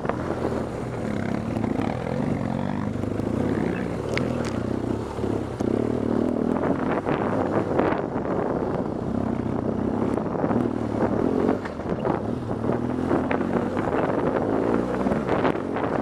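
BMW R 1200 GS Adventure's boxer twin engine running on a loose, rocky gravel track, with frequent knocks and rattles from the bike riding over the stones.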